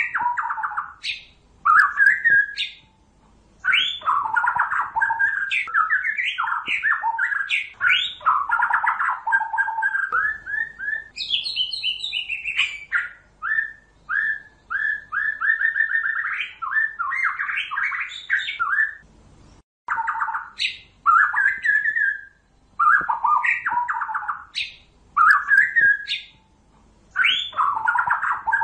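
White-rumped shama singing a varied song of rich whistled and chattering phrases with brief pauses between them. Around the middle there is a run of quick, evenly repeated short notes.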